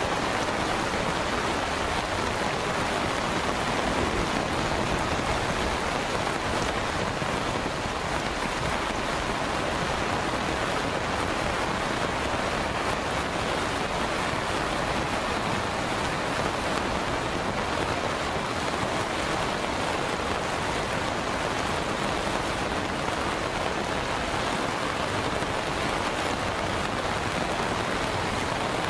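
Heavy monsoon rain pouring down, a steady even hiss that does not let up.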